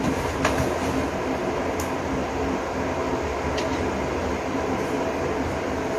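Steady whir and hum of an electric pedestal fan running, with a light click about half a second in.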